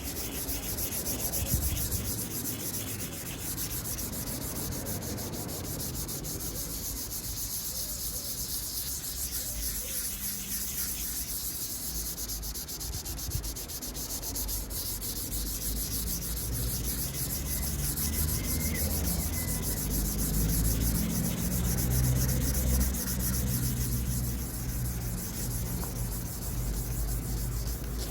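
Aggressive coarse abrasive sanding of a plastic car headlight lens, a continuous rasping scrub that grinds off the lens's weathered outer coating, which the owner takes to be old lacquer.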